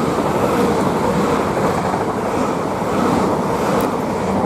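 A pair of Class 379 Electrostar electric multiple units moving through the platform at close range, a loud, steady rush of wheel, track and air noise with a faint hum.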